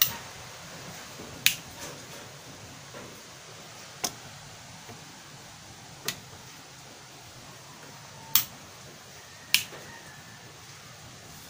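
Six short, sharp clicks, spaced a second or two apart, over faint room noise.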